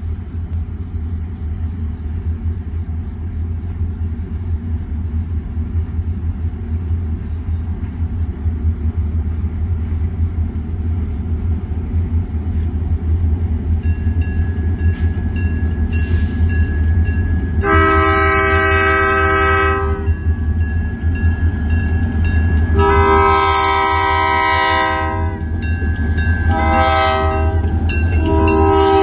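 EMD GP20 diesel locomotives approaching, their low rumble growing louder, while the lead unit's air horn sounds the grade-crossing pattern: two long blasts, a short one, and a final long blast starting near the end.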